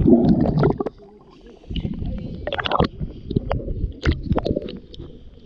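Water sloshing and gurgling right against the microphone as it dips under the surface of a pool among bubbles. The first second is the loudest, then come irregular knocks and splashes.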